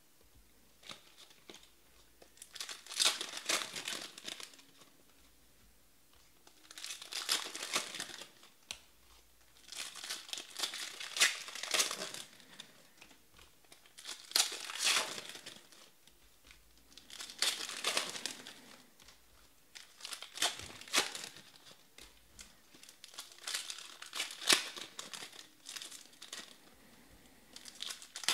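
2019 Panini Elite Extra Edition card pack wrappers being torn open and crinkled by hand, in about nine separate bursts every few seconds with short quiet gaps between.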